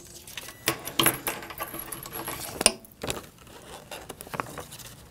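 Paper foundation and fabric being handled and pulled out from under a sewing machine's presser foot: light rustling with scattered small metallic clicks and a couple of short ringing clinks.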